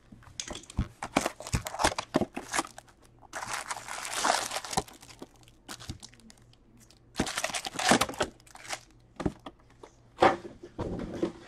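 Cardboard hobby box being opened and its foil-wrapped trading card packs crinkling as they are lifted out and set down in stacks: irregular bursts of rustling with scattered sharp taps.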